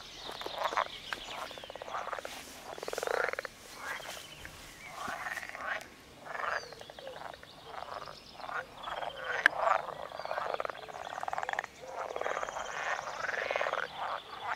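Chorus of many frogs croaking at a pond: overlapping bouts of rapid, rattling croaks follow one another without a break. A single sharp click comes about nine and a half seconds in.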